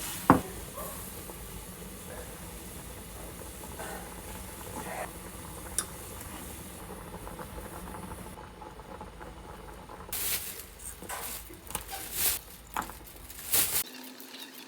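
Kitchen sounds over a steady low hum: a sharp clack just after the start, a lighter click a few seconds later, then several short loud bursts of hissing near the end.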